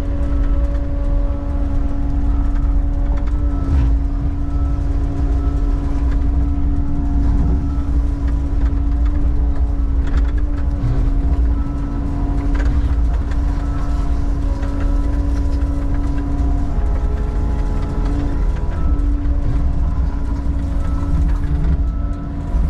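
Background music with held, slowly changing notes over a steady low engine rumble.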